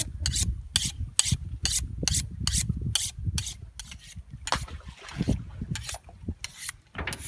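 A long fillet knife drawn again and again along a sharpening steel: short scraping strokes, about two or three a second, with a brief pause about four seconds in.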